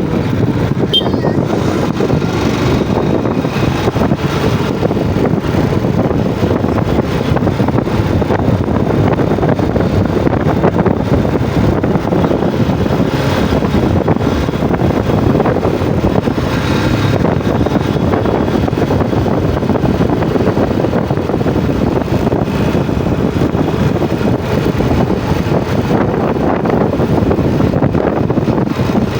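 Steady wind rushing over the microphone and road noise from a Yamaha Jupiter MX motorcycle being ridden, with no clear pitch from the engine and no letup.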